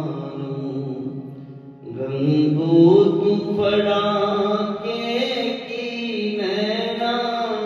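Sikh kirtan: a man singing a drawn-out devotional melody to harmonium accompaniment, with long held notes that bend in pitch and a brief breath about two seconds in.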